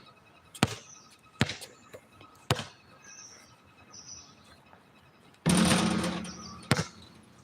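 Basketball dribbled three times on an outdoor court. About five and a half seconds in, a missed free throw hits the hoop with a loud clang that rings and dies away over about a second, followed by one bounce of the ball.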